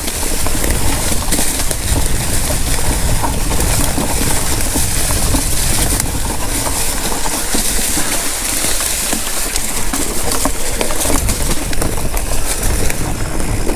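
Mountain bike ridden fast down a dirt singletrack: steady wind rush on the microphone with tyres crunching and the bike rattling over rough ground, with many small knocks.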